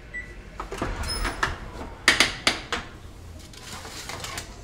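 Oven door opening and a metal sheet pan knocking and scraping on the wire oven rack as it is slid out: a string of sharp clicks and clanks, loudest about two seconds in.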